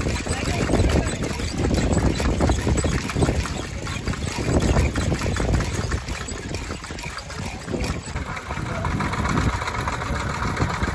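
Wind buffeting the microphone outdoors: a low, gusty rumble that swells and dips. About eight seconds in, a steadier, higher hiss joins it.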